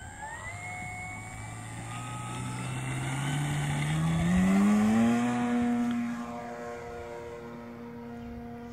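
Funtana 125 RC aerobatic plane's motor and propeller throttling up for takeoff: the pitch climbs steadily for a few seconds, then holds steady as the plane lifts off and climbs away, the sound easing off near the end.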